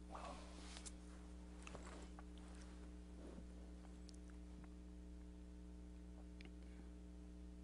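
Near silence: a steady electrical hum, with a few faint soft clicks and rustles in the first three seconds or so.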